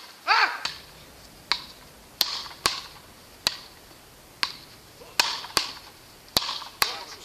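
Wooden beach-racket paddles knocking a ball back and forth in a rally: about nine sharp hits at uneven intervals, some in quick pairs. A short shout sounds right at the start.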